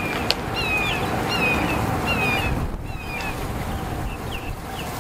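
Wind rumbling on the microphone, with a bird calling over it: short whistled notes sliding downward, repeated a little more than once a second and growing fainter after about three seconds. A single sharp click comes about a third of a second in.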